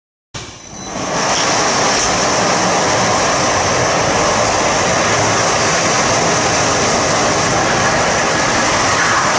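Sumag monorail hay crane trolley travelling along its overhead rail: the drive motor and wheels make a loud, steady running noise on the track. The noise starts abruptly just after the start.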